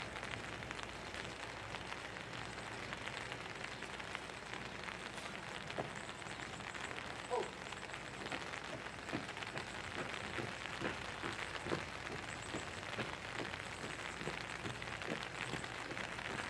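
Steady rain-like hiss of outdoor background noise with many faint scattered ticks and one brief chirp about seven seconds in.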